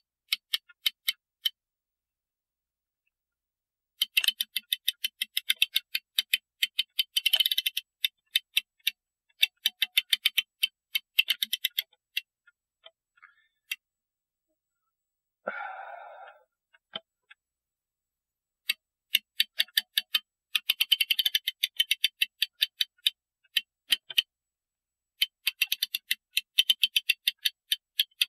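Ratchet of a clock mainspring winder clicking as the winding arbor is turned, the click snapping over the gear teeth: bursts of rapid sharp clicks, several a second, with pauses between, as a rivet-end mainspring is wound up in the winder.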